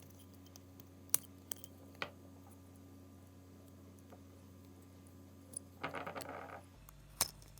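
Small sharp clicks and taps of plastic and a small hand tool as the circuit board carrying the cabin air temperature sensor is worked out of its plastic housing, with a brief scraping rustle near the end.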